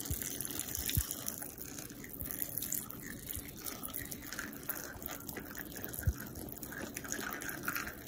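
Water running and splashing steadily from an improvised watering rig onto garden plants, with two soft low thumps, one about a second in and one about six seconds in.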